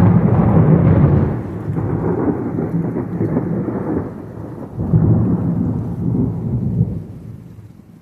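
Thunder from a close lightning strike, rumbling loudly. It swells again about five seconds in, then dies away near the end.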